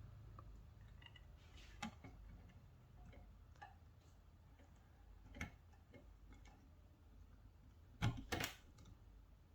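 Quiet room with a few scattered light clicks and taps from handling small parts and tools, with two louder clicks close together near the end.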